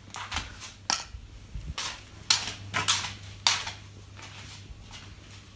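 A run of sharp clicks and light clatters of small hard objects being handled or knocked about, about a dozen in the first three and a half seconds, then only a few faint clicks.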